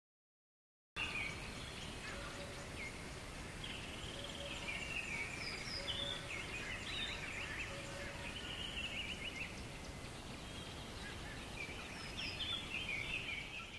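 A flock of birds calling and chirping, many short calls and trills over a steady background hiss, starting abruptly about a second in.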